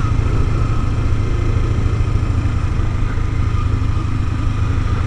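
Sport motorcycle engine running steadily at low speed, with a deep, even drone.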